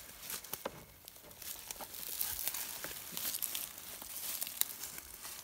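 Irregular rustling and crackling of dry pine needles and leaf litter, with one sharper snap near the end.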